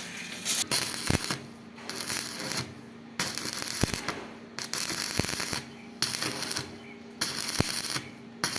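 Arc welding on pipe: the arc crackles in runs of about a second, broken by short pauses, over a steady electrical hum.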